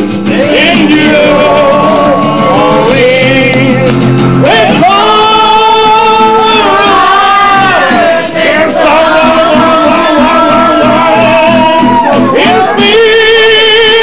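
Loud live Irish folk music: singing in long held notes that waver and slide, with instruments behind.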